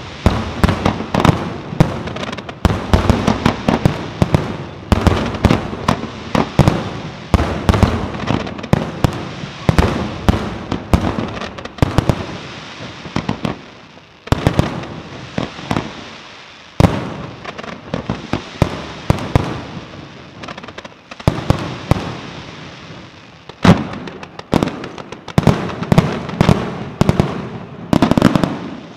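Fireworks display with aerial shells bursting in rapid succession: a dense run of sharp bangs and booms, with a few brief lulls before it builds again.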